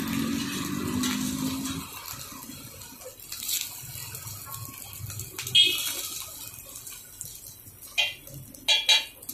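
Egg paratha sizzling in oil on a large flat griddle (tawa). A steel spatula strikes and scrapes the griddle sharply about halfway through, and clinks against it three more times near the end.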